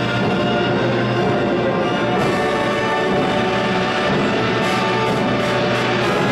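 Full symphony orchestra playing loudly and steadily, brass prominent over sustained strings and a held low bass note.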